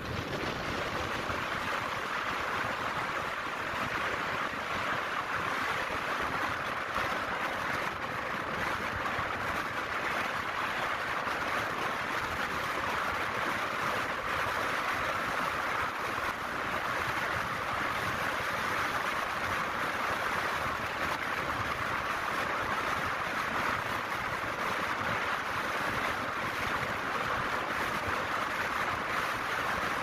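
A steady rush of wind and tyre noise from a vehicle driving along a paved road, even and unbroken, with no engine note standing out.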